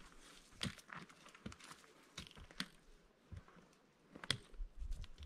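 Scattered light clicks and knocks, irregularly spaced, about seven in all, with a low rumble starting near the end.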